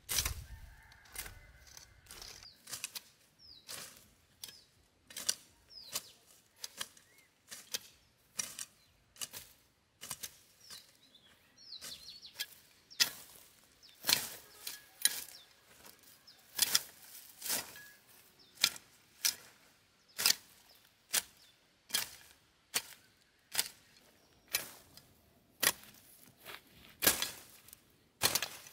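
Hand sickle swishing and slicing through weeds and grass in short, repeated strokes, about one to two a second.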